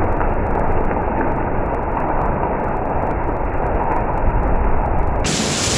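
Hail and heavy rain falling in a steady, dense hiss, turning suddenly brighter and sharper about five seconds in.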